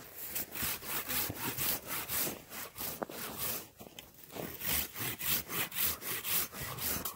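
Folding pruning saw cutting into a green aspen log in quick back-and-forth strokes, about three a second, with a brief pause about four seconds in: the side cuts for a notch.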